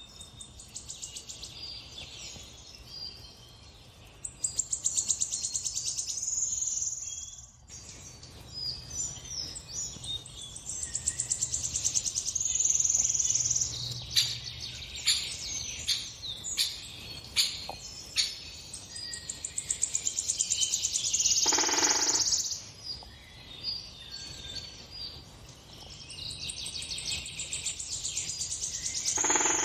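Songbirds singing from a bird video playing on a television: a series of rapid high trills and chirps, one phrase after another.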